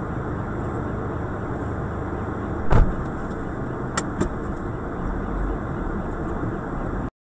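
A small car colliding: one loud bang about three seconds in, then two lighter knocks about a second later, over the steady hum of a car heard from inside its cabin. The sound cuts off suddenly near the end.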